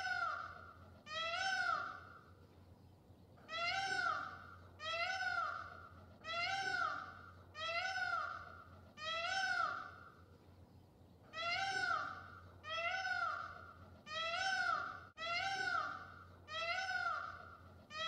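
An animal calling over and over: about fourteen loud, wailing, meow-like calls, each rising then falling, roughly one a second, with two short pauses.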